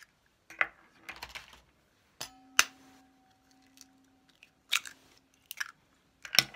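Eggs cracked against the rim of a stainless steel mixing bowl: scattered sharp knocks and shell crackles. One knock about two and a half seconds in sets the bowl ringing with a hum that fades over about two seconds.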